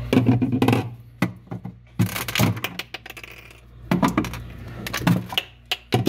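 Scattered clicks, knocks and light clinks come in short clusters about every second or two, from hands working at the plastic inner rear panel of a frost-free refrigerator, where its screws are to be taken out.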